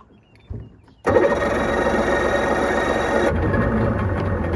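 Mercury outboard motor being started: a short crank about half a second in, then the engine catches about a second in and runs steadily.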